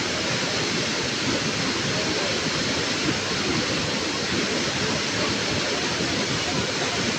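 Steady rushing water, an even, unbroken wash of sound.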